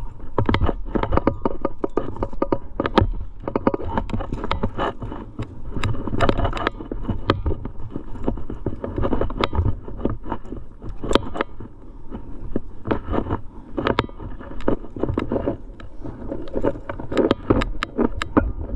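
Trad climbing rack clinking and rattling at the harness as the climber moves on rock: many short, irregular metallic clicks from carabiners and cams, with scrapes and scuffs of hands and shoes on the rock over a low rumble of wind and handling on the microphone.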